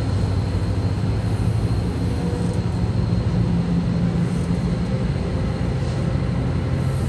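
MARC bilevel commuter coaches passing close by at speed: a steady, loud rolling noise of steel wheels on rail, heaviest in the low end.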